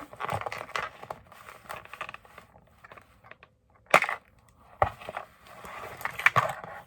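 Doll box packaging being handled: plastic and cardboard crinkling and rustling, with a few sharp clicks and snaps, the loudest about four seconds in.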